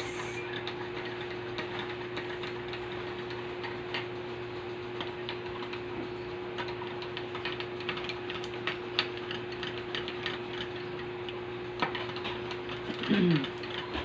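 Metal spoon stirring coffee in a glass mug, with small scattered clinks against the glass, over a steady low hum.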